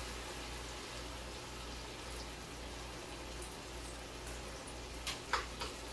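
Coconut milk pouring from a can into a pot of simmering fish curry: a soft, steady liquid sound, with a few sharp clicks about five seconds in.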